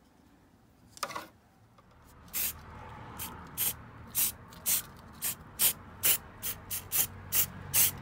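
Aerosol can of car wheel silver paint sprayed in short squirts: about a dozen quick hisses starting about two seconds in and coming faster toward the end. The paint comes out of the can fast, so it is sprayed in little bursts.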